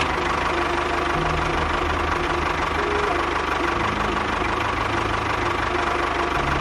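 A small motor running steadily with a rattling, whirring noise and a faint whine, over quiet background music.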